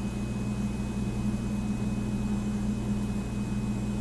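Steady low background hum with a constant droning pitch and no distinct events.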